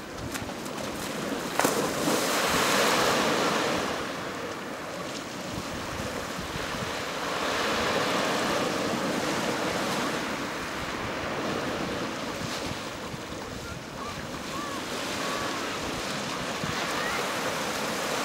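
Sea surf breaking and washing onto a sandy beach, swelling and ebbing every few seconds, with wind rumbling on the microphone. A sharp tap about one and a half seconds in.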